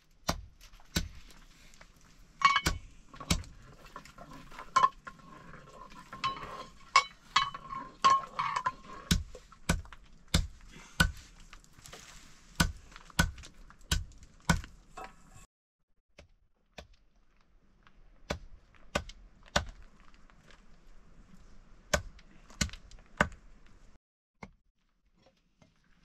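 Metal cooking pots and utensils clinking and knocking at a wood-fired hearth: irregular sharp clicks with a faint ringing in the first part, thinning out after about fifteen seconds and stopping shortly before the end.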